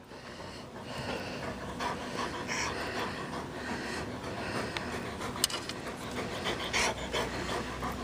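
Coonhound panting with its mouth open close to the microphone, with one sharp click about five and a half seconds in.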